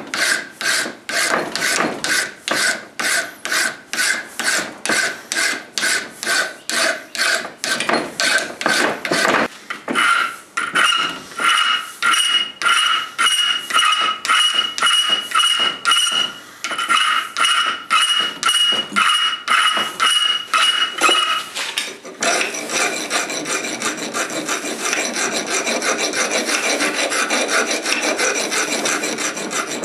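A hand file rasping across a steel dagger piece clamped in a bench vise, in regular push strokes about two a second. From about ten seconds in, a high ringing sounds with each stroke, until about 21 seconds. After that the strokes become quicker and run almost together.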